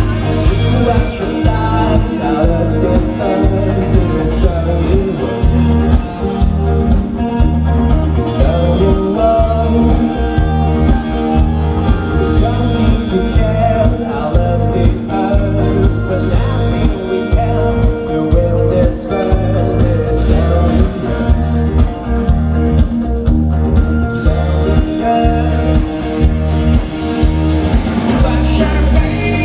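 Live rock band performing through a PA: electric guitar, bass and a steady driving drum beat, with a singer over the top.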